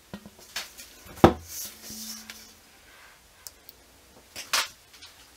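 Handling sounds from pouring soap batter out of a metal mixing bowl into a wooden loaf mold: a few light clicks and knocks, the loudest a sharp knock about a second in, and a brief scrape near the end.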